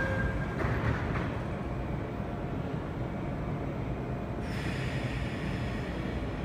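Seoul Metro Line 1 resistance-controlled electric train pulling away from the platform, heard through the platform screen doors. A steady low rumble of motors and wheels, with higher-pitched running noise joining about four seconds in as it picks up speed.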